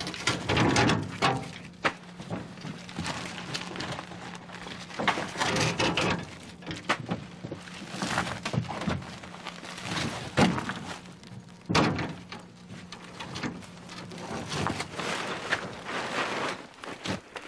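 Sacks of ore being handled and set down: irregular thuds and rustling over a low steady hum.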